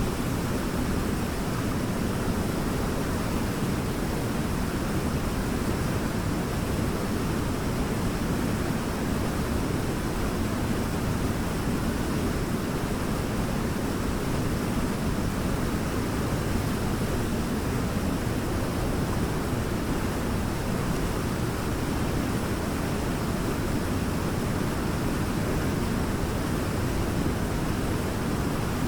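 Waterfall pouring steadily: an even, unbroken rush of falling water, heaviest in the low range.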